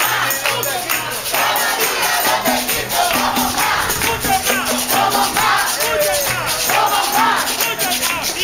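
A marching crowd beating hand-held frame drums (panderos) in a quick rhythm, with many voices singing and calling over the drumming.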